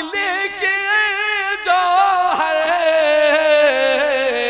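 Man singing a naat unaccompanied into a microphone, his voice wavering through ornamented turns and then drawing out one long held note that slowly sinks in pitch.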